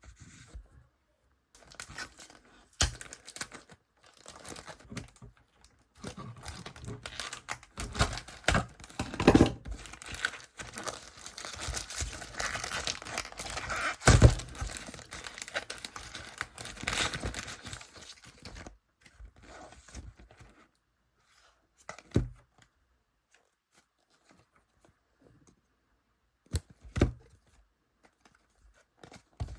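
Packaging being torn and crinkled open by hand, busy and continuous for most of the first two-thirds, with a few separate short knocks later on.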